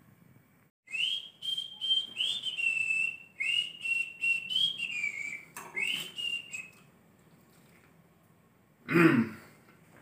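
A person whistling a tune for about six seconds, the notes stepping up and down. Near the end there is a short, loud, low vocal sound that falls in pitch.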